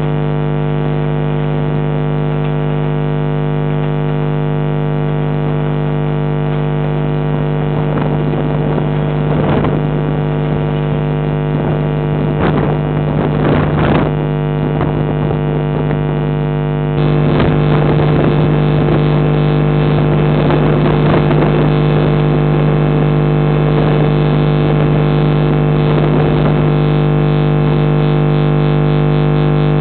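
Steady electrical hum at several fixed pitches on a security camera's audio, unchanged across a cut in the footage. Irregular clicks and clatter run over it from about 8 to 15 seconds in.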